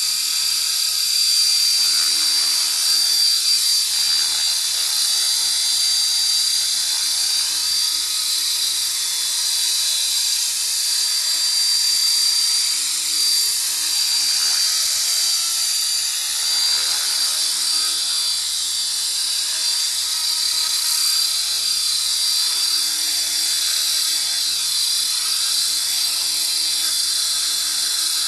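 Small Align T-Rex radio-controlled helicopter running with its rotor spinning, a steady high-pitched whine from the motor and rotor that holds an even pitch throughout, on its first lift-off.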